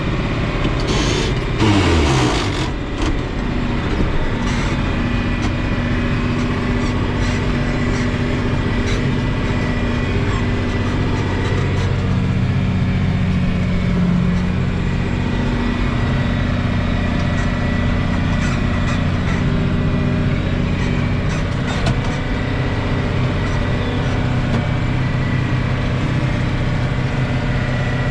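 Tractor engine running steadily while pulling a rotary mower, with a brief noisy burst and a falling tone about two seconds in.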